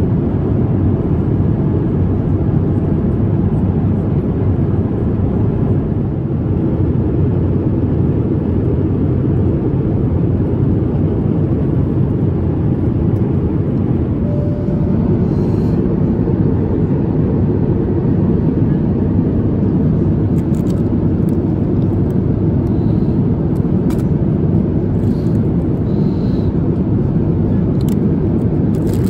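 Steady airliner cabin noise of an Airbus A350-1000 in cruise: a constant low rush of airflow and engine drone. A few faint clicks of food packaging being handled come near the end.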